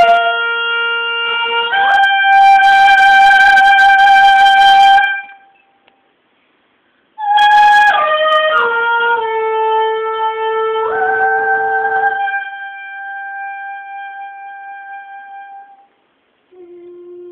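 A wind instrument playing long, sustained notes with a breathy edge. About two seconds in it steps up in pitch and holds. After a pause of about two seconds it plays a short falling run down to a low held note, then jumps back up to a long note that slowly fades out. A quieter low note enters near the end.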